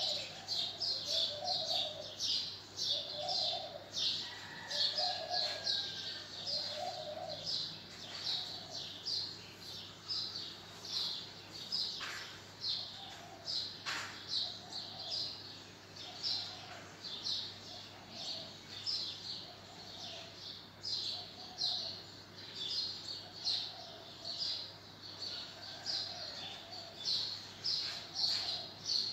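Birds chirping over and over in short, quick high notes, with a lower call repeating about once a second underneath and a single falling whistle a few seconds in.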